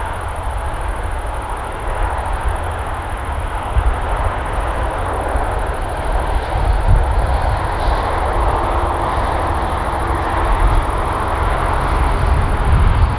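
Boeing 787-9 Dreamliner jet engines running: a steady rushing noise over a deep rumble, slowly growing louder.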